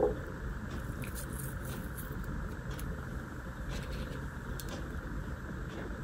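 Steady low background rumble with a few faint, scattered clicks.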